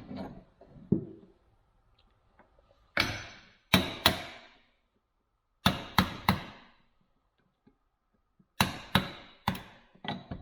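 Hammer blows driving a retaining pin out of a bench vise, struck in quick groups of two or three with short pauses between, about a dozen blows in all.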